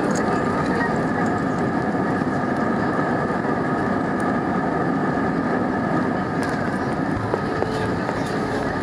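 Jet airliner's engines and airflow heard from inside the cabin as the plane rolls out after landing: a steady loud rush with a few held whining tones.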